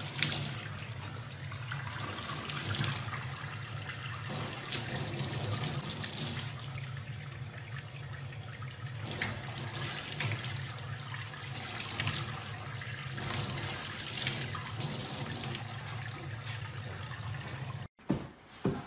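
Water pouring from a faucet into a stainless steel sink, with louder splashes coming and going as a young chimpanzee's hands and body break the stream. It cuts off suddenly near the end.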